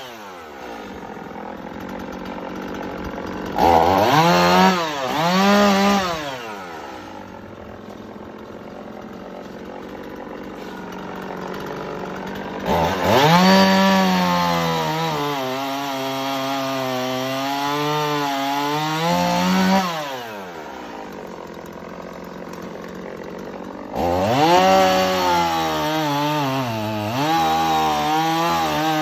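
Chainsaw engine idling, revved up twice briefly, then held at high revs for about seven seconds while cutting firewood before dropping back to idle; it revs up again near the end.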